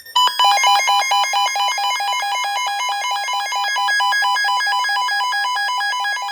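Emergency alert attention tone: a loud electronic alarm of rapidly alternating beeps at two pitches, several pulses a second, starting abruptly. Near the end a steady higher tone takes over while the lower beeps keep pulsing, ahead of a severe thunderstorm warning.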